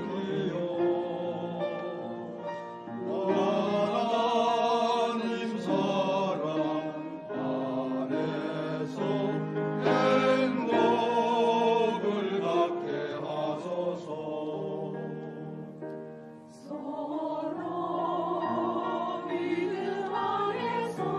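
Church choir singing a hymn in parts with instrumental accompaniment, the voices held on long, wavering notes. The sound falls away briefly about three-quarters of the way through before the choir comes back in.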